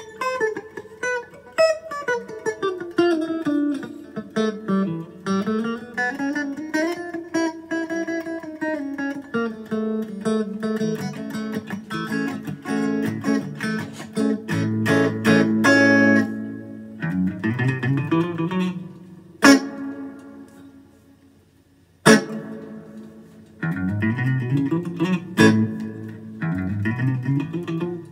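Electric guitar, a Stratocaster through a Fender amp, playing single-note lines with bends and slides, then strummed chords. About two-thirds of the way through the playing stops and fades out, with a couple of sharp clicks, and starts again a few seconds later.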